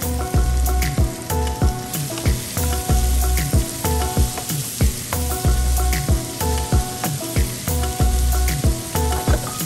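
Bitter melon slices sizzling in hot butter in a frying pan, stirred with a wooden spatula, under background music with a steady beat and bass line.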